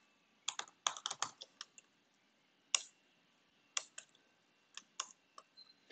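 Computer keyboard typing: a quick run of keystrokes about half a second in, then single key presses spaced out through the rest.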